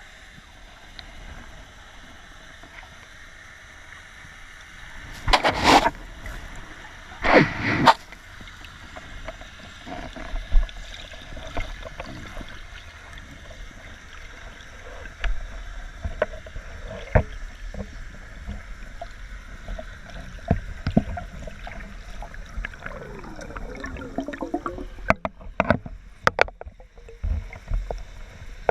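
Water gurgling and sloshing around a spearfisher in the water. There are two loud half-second water bursts about five and a half and seven and a half seconds in, and a quick run of sharp clicks near the end.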